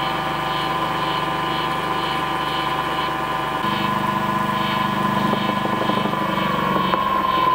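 Centrifugal casting machine for silicone fishing lures, its electric motor run from a variable-frequency drive at 150 Hz, spinning the round mould with a steady whine and hum. Near the end it is switched off and the whine starts to fall in pitch as the mould spins down.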